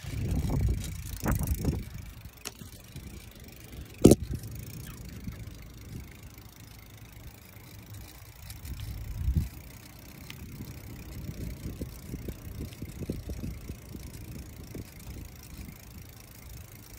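Wind noise buffeting the microphone and tyre noise on asphalt while riding a bicycle, uneven and low, with one sharp knock about four seconds in.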